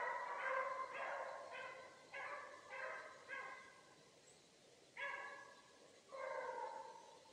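Beagle hounds baying in a string of short calls, about two a second, giving tongue as they run a rabbit's trail; they pause for about a second past the middle, then start again.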